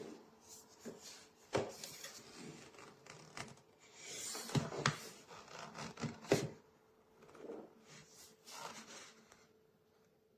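Handling noise: irregular rubbing and rustling, with several sharp clicks and knocks. The loudest knocks come about a second and a half in, around the middle, and a little after. It dies away near the end.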